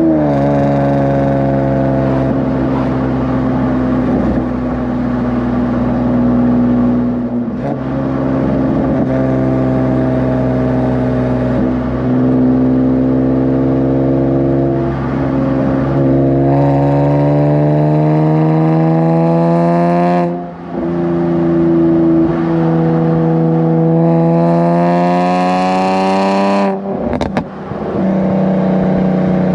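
Nissan 370Z's 3.7-litre V6 with PPE aftermarket headers under way: it holds steady revs at first, then climbs in pitch through the gears, the revs dropping sharply at the upshifts about twenty and twenty-seven seconds in.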